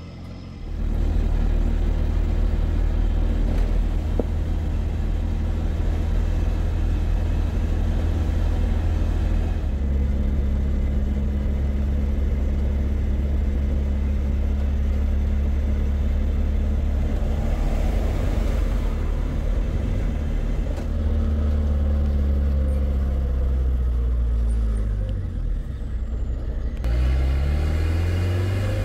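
A heavy farm machine's engine running loudly close by, a deep steady drone. Near the end its pitch drops and climbs again as the revs change.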